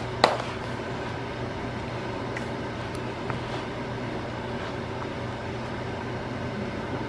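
A steady mechanical hum with a light noise haze, over soft scraping and a sharp knock about a quarter second in, from a spoon working stiff rice-flour and tapioca dough in a plastic bowl.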